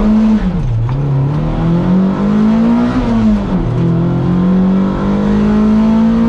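Toyota MR2 race car's engine under racing load, its pitch dropping sharply about half a second in and again about three and a half seconds in, each time climbing back up as the car accelerates, then holding high and steady near the end.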